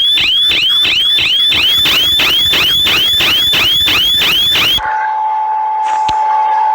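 Electronic alarm tones of a mock Emergency Alert System alert. A rapid run of rising chirps, about three a second, stops abruptly about five seconds in and gives way to a steady single tone over a light hiss, with one sharp click near the end.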